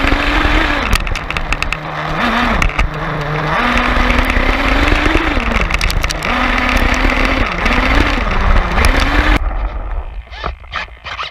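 Radio-controlled monster truck driving over gravel, heard from on board: its motor's pitch rises and falls as it speeds up and slows, over a constant crunching and rattling from the tyres on the stones. About nine seconds in the motor noise cuts off, leaving a few clicks.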